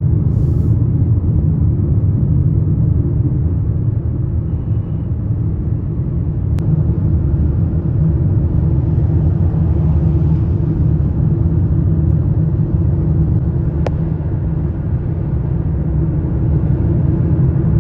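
Steady low rumble of a car driving on a highway, road and engine noise heard from inside the cabin, with a couple of faint clicks.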